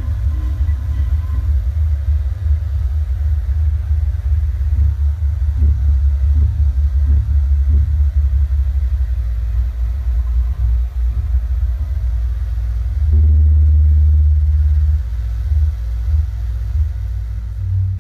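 Live electronic noise music through loudspeakers: a loud, heavily distorted low rumble, with a steadier held drone from about 13 to 15 seconds in.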